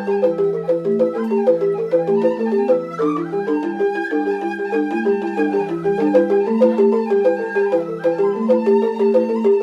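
Rindik, the Balinese bamboo xylophone, playing fast interlocking mallet patterns in a steady repeating rhythm over a slower, lower melody.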